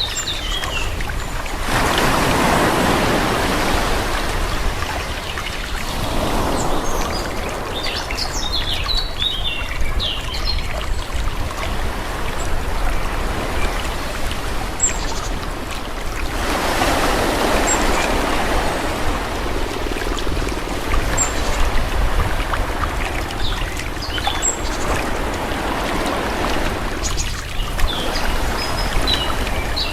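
Calm sea: small waves washing in over a steady low rumble, two larger swells building and fading about fourteen seconds apart. Small birds chirp briefly in between the swells.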